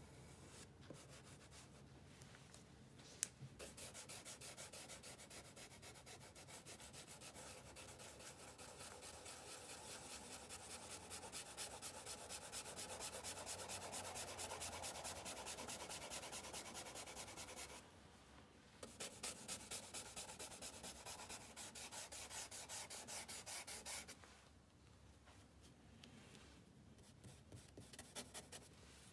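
A brush scrubbing charcoal into paper in quick, rhythmic back-and-forth strokes. The strokes pause briefly about eighteen seconds in and die down after about twenty-four seconds, with a few lighter strokes near the end.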